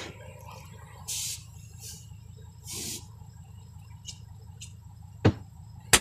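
Two short bursts of gas hissing from an oxy-acetylene cutting torch as its valves are opened and shut, then a sharp knock and a louder sharp bang near the end, over a low steady hum.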